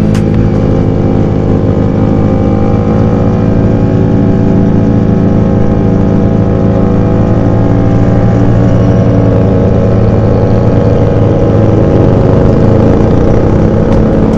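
Bajaj Pulsar RS200 single-cylinder motorcycle engine running steadily while riding at an even cruising speed, heard from the saddle.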